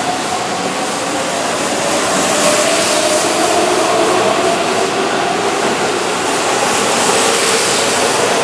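Keihan 7200 series electric train pulling out of a station, its VVVF inverter-driven traction motors whining in several tones that shift in pitch over the steady noise of the wheels on the rails.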